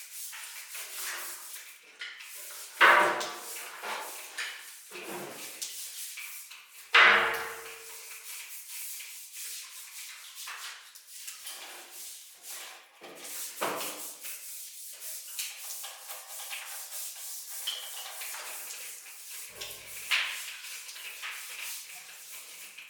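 Hand tools scraping and rubbing on the old water heater's parts, with scattered knocks and two louder clanks about three and seven seconds in.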